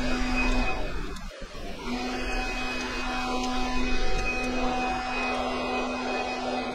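A steady mechanical whirr with a constant hum running under it. The hum drops out for about a second early on, with a brief break about a second and a half in, and cuts out again briefly near the middle.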